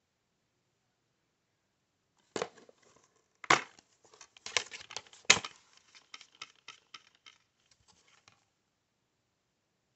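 Plastic DVD keep case being handled and opened: a string of sharp clicks and snaps starting about two seconds in, loudest near the middle, then tapering off into light ticks.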